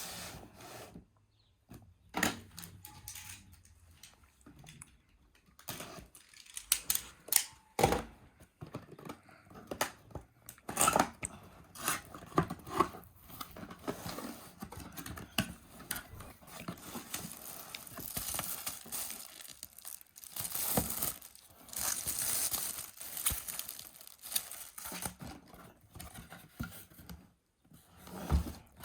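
Packaging being opened by hand: tearing and crinkling of wrapping, with scattered clicks and knocks as the contents are handled.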